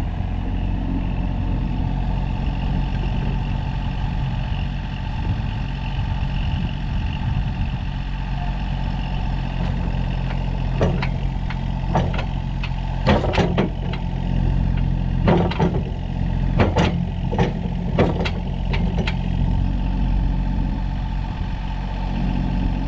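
Mini excavator's diesel engine running steadily as its boom pulls a cable through an old buried water line, with a string of sharp clanks about halfway through.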